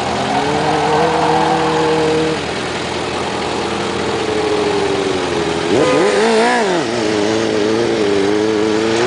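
Suzuki GSX-R 600 inline-four sportbike engine revved while standing still. It is held at raised revs that sag gently, then blipped sharply up and back down about six seconds in, then held steady again.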